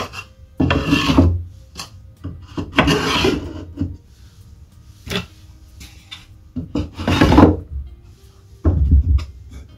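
Small wooden drawers being slid in and out of their cabinet slots to test the fit, wood rubbing on wood in four scraping strokes, with a short knock about five seconds in.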